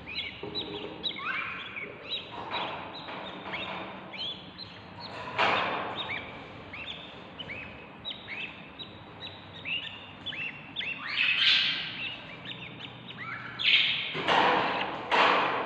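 Budgerigar chicks in a nest box calling for food: a steady run of short chirps, with a few louder, harsher calls about five, eleven and fourteen seconds in.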